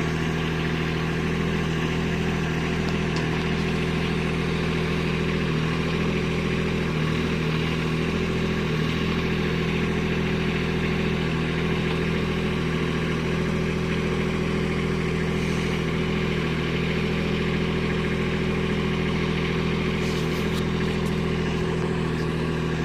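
Kubota B2601 compact tractor's three-cylinder diesel engine running steadily as it powers the backhoe.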